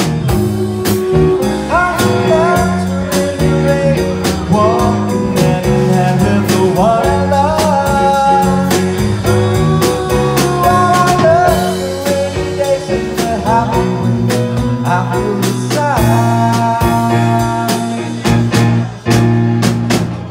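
Live band music: a man sings a slow soft-rock song into a microphone over electric keyboard chords, bass and a drum kit. The voice drops out near the end while the band keeps playing.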